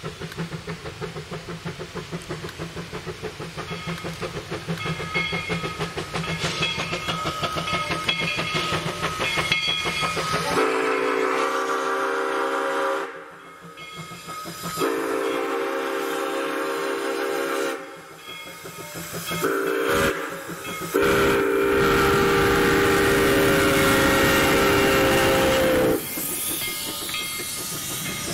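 B&SR No. 7, a two-foot gauge steam locomotive, approaches with a steady beat of exhaust chuffs, then blows its steam whistle in the grade-crossing signal: long, long, short, long. Near the end the cars roll past, clicking over the rail joints.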